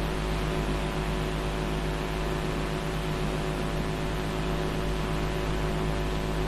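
Steady electrical hum with an even hiss over it, unchanging throughout: background noise of an old film soundtrack.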